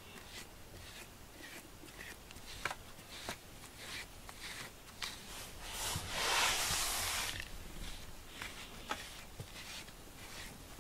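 Soft rustling of a hand stroking a cat's fur close to the microphone, with small ticks. Just past the middle comes one breathy rush lasting about a second: a cat's breath right against the microphone.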